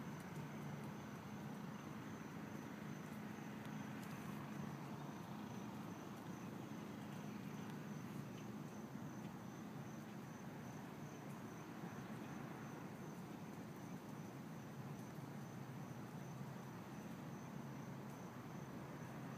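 Faint outdoor ambience with an insect's steady, high-pitched pulsing trill throughout, over a low steady hum.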